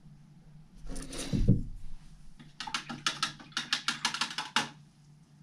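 Handling noise on a tabletop: a short rustle ending in a dull thump, then a quick run of about a dozen light clicks or taps, roughly five a second, for about two seconds.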